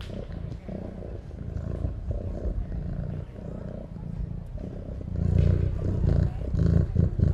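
Deep animal growls and roars, a run of low rough pulses that grows louder about five seconds in.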